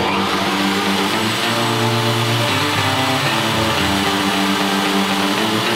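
Bosch router running steadily at full speed, its V-bit carving into red cedar as the pantograph jig guides it, with background guitar music playing along.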